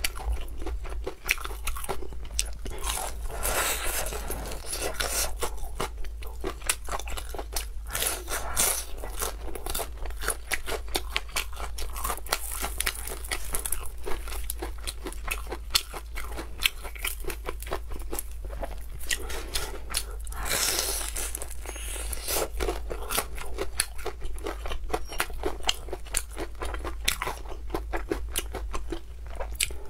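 Close-miked crunching and chewing of a crispy breaded fried chicken cutlet, the coating crackling in quick, dense bursts of small cracks as pieces are torn and bitten.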